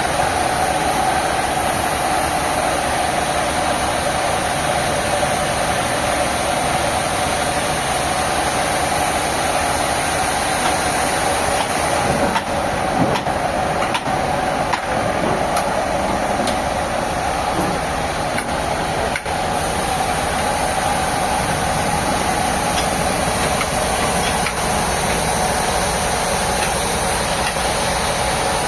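Sawmill machinery running steadily with a constant drone, joined by a few short knocks and clicks about halfway through.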